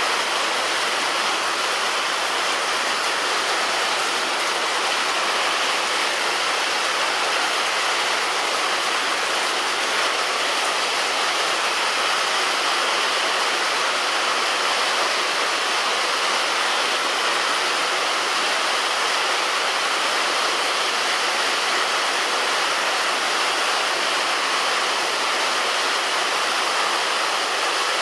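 Heavy rain falling steadily on a roof: an even, dense hiss with no single drops or thunder standing out.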